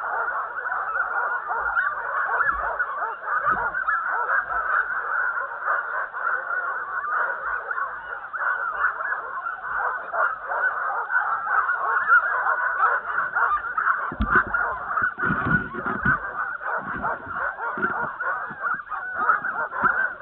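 Harnessed sled dogs barking and yelping nonstop in a dense chorus, the excited racket of a team eager to run at a race start. Some low thumps come about two-thirds of the way through.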